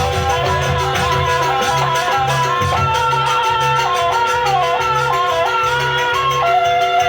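Jaranan gamelan music: a reedy, shawm-like wind melody wandering up and down over steady held tones, with low drum or gong beats about twice a second.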